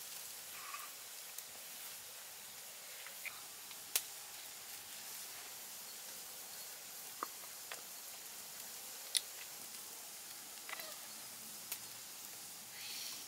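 A faint steady hiss with scattered sharp clicks and taps as small seasoning jars and utensils are handled over diced raw pork in a plastic tub. The loudest clicks come about four and nine seconds in.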